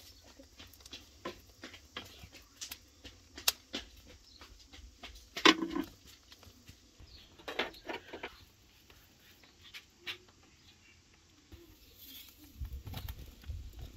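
Metal tongs knocking and scraping against roasted corn cobs and the embers as the cobs are turned and lifted off the coals: scattered light clicks, one sharper knock about halfway through, and a few soft low thumps near the end.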